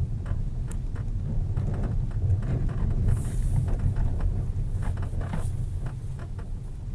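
Repeated short, irregular creaks over a steady low rumble.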